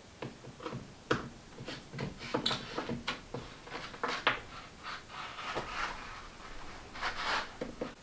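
Scissors cutting a heavyweight plastic diffusion sheet: a string of irregular snips and clicks, with the stiff sheet rustling and crinkling between cuts.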